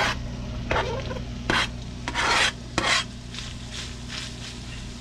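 Chef's knife blade scraping diced onion and porcini off a plastic cutting board into a frying pan: about five quick rasping strokes in the first three seconds, then fainter scrapes, over a steady low hum.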